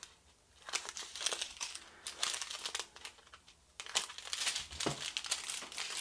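Thin plastic bags of diamond painting drills crinkling as they are handled, in uneven bursts with a short pause at the start and another about halfway through.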